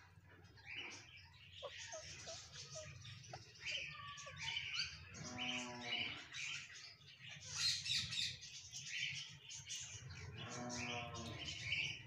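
Rose-ringed parakeets chirping and squawking in a quick run of short, high calls, with two longer, lower drawn-out calls, one about five seconds in and one near the end, over a steady low hum.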